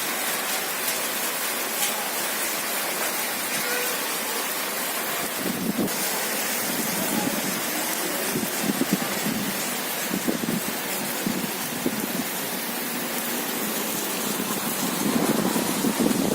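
Heavy rain pouring in a steady hiss, with occasional brief low bumps.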